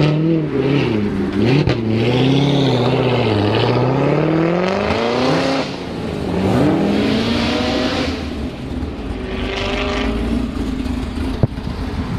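Supercharged LT4 V8 of a C7 Corvette Z06 revving as the car pulls away. It starts with quick blips up and down, then a long rising rev that cuts off sharply about five and a half seconds in, a second shorter rise, and a steadier run near the end.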